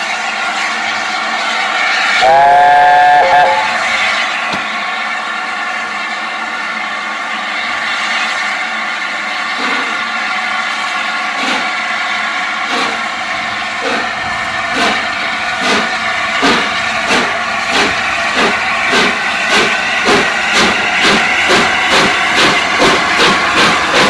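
LNER A4 Pacific No. 60007 'Sir Nigel Gresley' sounds its chime whistle once, briefly, about two seconds in, then starts away with a steady hiss of steam. Its exhaust beats begin slowly and quicken to about three a second as it gathers speed.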